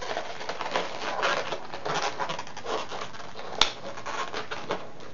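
Latex modeling balloons rubbing under the fingers as a small balloon piece is wrapped and tied, with a single sharp snap about three and a half seconds in.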